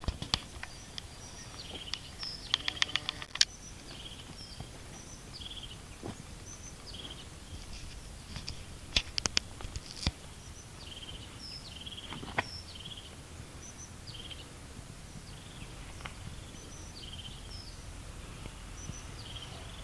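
European robin calling: short high notes repeated about once or twice a second, with scattered sharp clicks, including a quick run of them about three seconds in.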